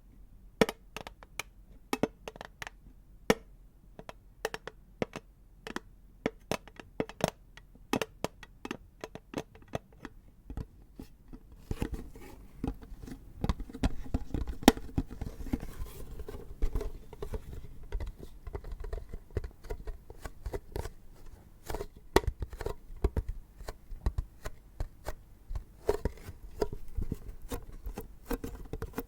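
A tin container being tapped and handled close to the microphone: crisp taps, about two a second, for the first dozen seconds, then a denser scratching and rubbing on the tin with taps still mixed in.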